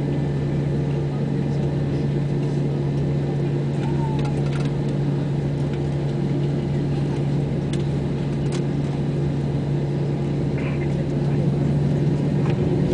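Airbus A320 jet engines at takeoff power heard from inside the cabin during the takeoff roll: a steady, loud drone with a deep hum under it. A few faint clicks come through, and the noise grows slightly louder near the end.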